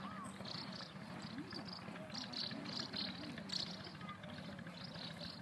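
Outdoor ambience of small birds chirping repeatedly in short high calls, with people talking in the background.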